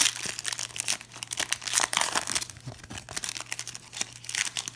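Plastic wrapper of a trading card pack being torn open and crinkled, a run of irregular crackling rustles.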